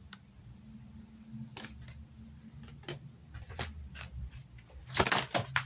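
Oracle cards being handled: scattered light clicks and taps as a card is set on a small wooden easel stand, with a louder burst of card-handling noise about five seconds in.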